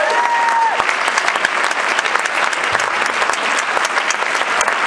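Audience applauding steadily after a concert band piece, with a shrill whistle from the crowd that breaks off within the first second.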